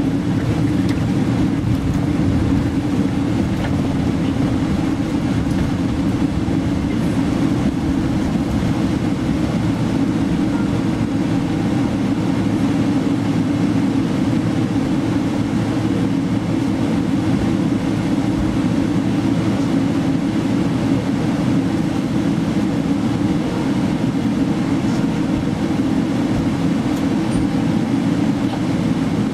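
Cabin noise of a Boeing 777-300ER taxiing after landing: a steady low rumble of the engines and wheels rolling on the taxiway, heard from inside the cabin.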